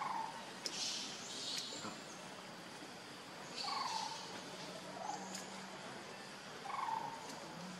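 A few short, soft animal calls, spaced a second or more apart, over a faint steady hum, with two brief hissy rustles in between.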